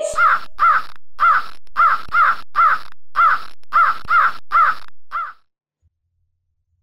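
Crow cawing: about a dozen short caws in quick, uneven succession, each rising then falling in pitch, over a faint background hiss. The calling stops a little over five seconds in.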